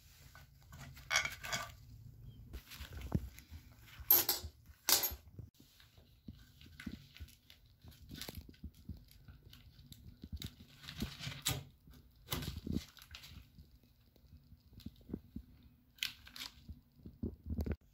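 Faucet parts and hand tools being handled while the faucet is taken apart: irregular clicks, light knocks and scrapes, with two sharp, loud scrapes about four and five seconds in.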